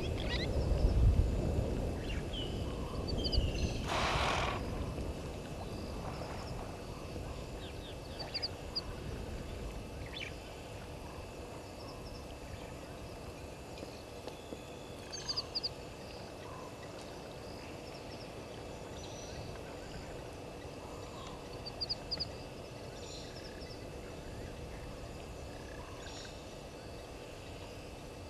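Birds calling over a quiet bush background: a short, high chirping call repeats about every six or seven seconds, with one louder, harsh call about four seconds in. A low rumbling noise fades out over the first few seconds.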